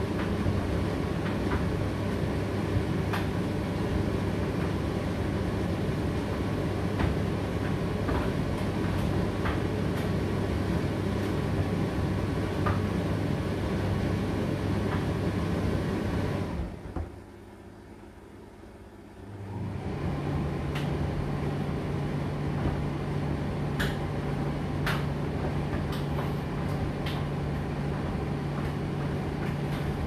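Indesit IDC8T3 condenser tumble dryer running mid-cycle: a steady machine hum with occasional light clicks. About sixteen seconds in the motor stops for about three seconds, then starts again with a slightly higher hum.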